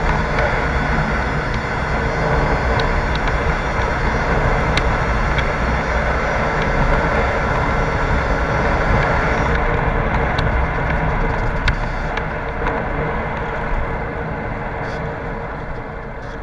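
Cagiva Supercity 50's small two-stroke engine running steadily as the motorcycle rides along, with wind and road noise; it eases off and gets quieter near the end.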